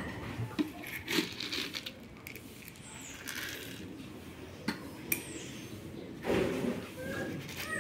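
Plastic feeder dish and lids full of rabbit pellets being handled against a wire cage: scattered light clicks, clinks and knocks, with a louder scrape a little before the end.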